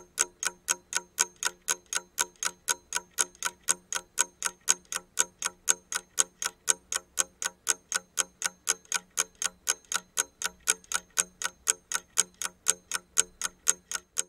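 Steady ticking, about four sharp ticks a second, like a clock ticking sound effect.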